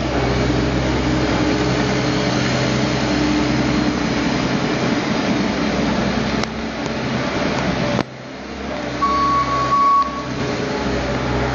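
New Holland L160 skid steer's engine running steadily. About eight seconds in the sound drops off abruptly, and shortly after a high steady tone sounds for about a second before the machine is heard again.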